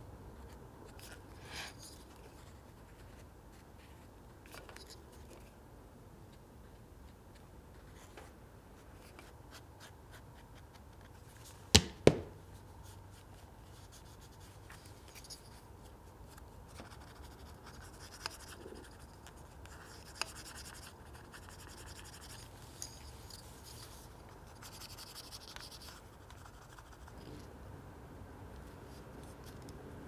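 Faint scratching and rubbing of hands working small pieces of leather, with an abrasive tool sanding the edge of a leather strap tab at the start. Two sharp knocks come close together partway through, and a few lighter ticks follow.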